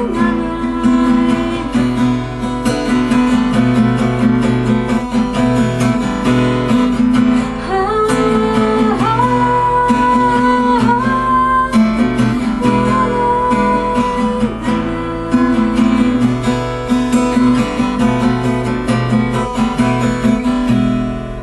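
Acoustic guitar strummed in a steady rhythm, an instrumental passage; from about 8 to 12 seconds in a held melody note slides up and holds above it.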